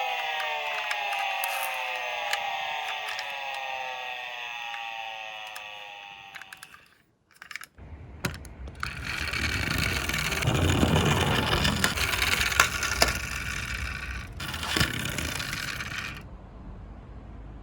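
A toy emergency vehicle's electronic siren, its tones gliding down and fading out over about six seconds. After a short gap, toy minicars roll down a slope, rattling and scraping with many clicks, for about eight seconds before it quietens.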